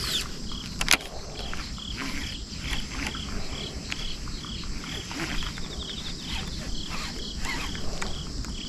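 Insects chirping in a steady chorus: a high hiss with short chirps repeating about three times a second. A single sharp click comes about a second in.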